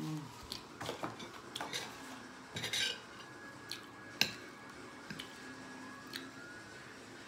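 A metal fork clinking and scraping against a dinner plate while fries are picked up: a few scattered light clicks, a short cluster of scraping a little before three seconds, and one sharp clink a little after four seconds that is the loudest.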